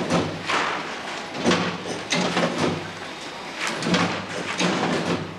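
Factory machinery running: repeated clattering strokes, roughly one or two a second, over a steady hum.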